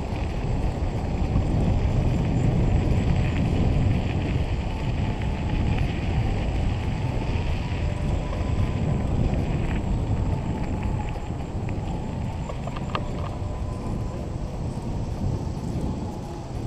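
Wind buffeting the microphone of a camera riding on a moving bicycle: a steady low rumble, with a few light clicks about thirteen seconds in.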